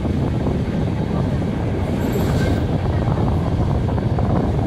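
Running noise of a ČD 'Pantograf' (žabotlam) electric multiple unit on the move: a steady rumble of wheels and running gear, heard from on board. A faint, brief high squeal comes about two seconds in.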